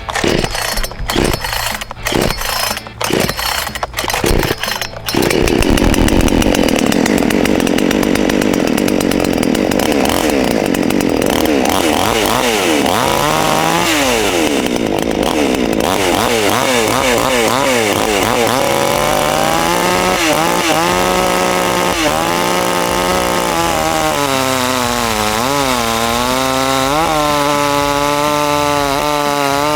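Temu gas chainsaw: a string of sharp knocks for the first five seconds or so, then the engine catches and runs loudly. From about halfway on, its pitch rises and falls again and again as the revs dip under load, typical of the saw cutting through a log.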